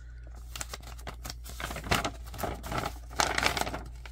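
Paper rustling and crinkling as a folded model-kit instruction sheet is handled and unfolded, in uneven rustles that are loudest about two and three seconds in.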